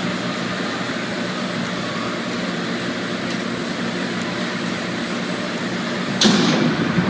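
Steady running of a meat grinding line in a processing plant: conveyor and machinery noise with a low hum as the belt carries meat trimmings. About six seconds in comes a brief, loud burst of noise that fades within about half a second.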